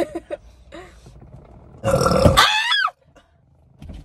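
A person lets out one loud, long burp about two seconds in, lasting roughly a second, with its pitch bending at the end.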